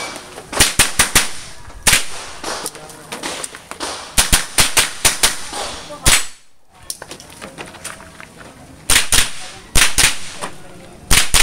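A .22 rimfire rifle firing in rapid strings of sharp shots, often several within a second, with short pauses between strings.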